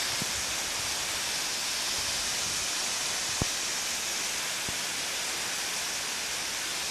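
Waterfall pouring onto rock: a steady, even hiss of falling water, with two faint ticks in the middle.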